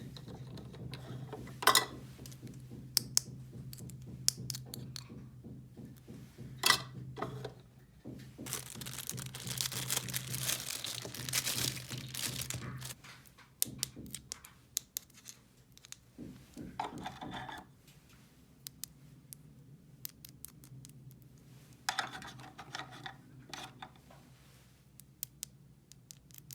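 Toy packaging being handled and opened: plastic and paper crinkling and tearing, with a longer stretch of it about a third of the way in, and scattered clicks and knocks of small plastic toy pieces.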